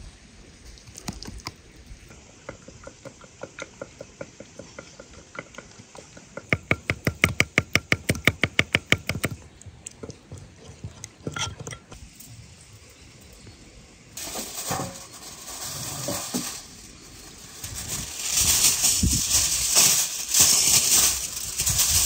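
Wooden spoon stirring a thick oil-and-pepper-paste marinade in a ceramic bowl, a run of quick, steady strokes against the bowl that grow louder and faster partway through. About halfway, aluminium foil is pulled off its roll and crinkles loudly.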